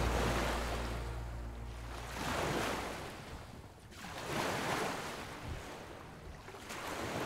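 Ocean surf: waves washing in and drawing back in swells about every two seconds. The last of the background music dies away at the start.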